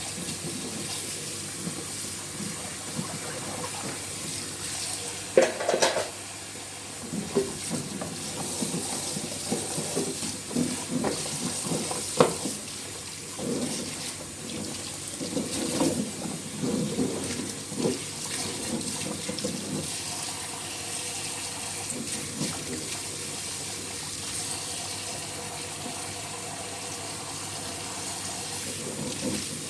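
Tap water running steadily into a sink during dish-washing, with scattered knocks and clatter, the sharpest about five and twelve seconds in.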